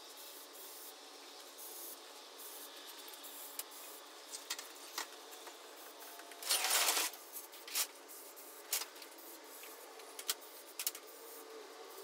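Aerosol can of Permatex silicone spray lubricant hissing in one burst of about half a second, about six and a half seconds in, with a few short sharp sounds before and after it, as the garage door hinges are lubricated.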